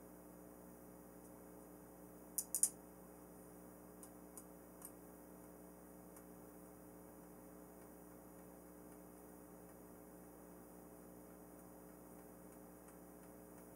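Small metal clicks of a hex driver and screws being worked into a propeller hub: three sharp clicks about two and a half seconds in, then a few lighter ticks, over a faint steady hum.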